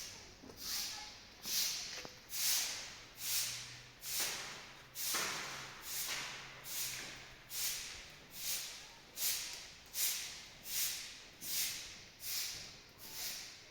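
Regular swishing strokes, a little more than one a second, each starting sharply and trailing off, like a brush or broom worked back and forth.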